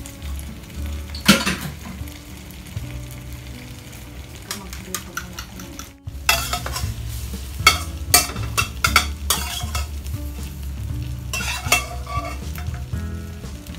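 Chicken and its sauce sizzling in a foil tray set in a steel wok over a gas burner, with frequent sharp crackles and pops over a steady low rumble. The sound drops out briefly about six seconds in.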